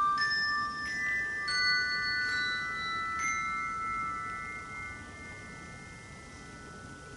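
Handbells rung one note at a time, about five notes in the first three seconds, each ringing on and overlapping the next. The notes are then left to ring and slowly fade.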